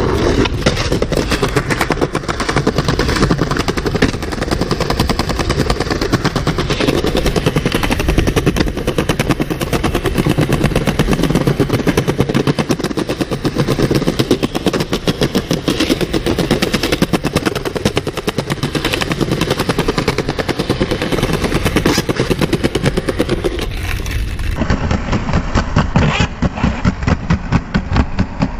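Skateboard wheels rolling over rough street pavement close to the microphone, a rapid continuous rattling clatter. The sound changes abruptly near the end as a different run begins.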